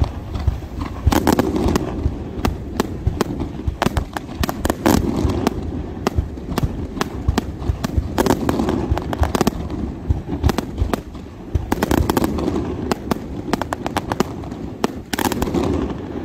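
Fireworks display: a dense, rapid run of bangs and crackling shell bursts, with heavier booming salvos about every three to four seconds.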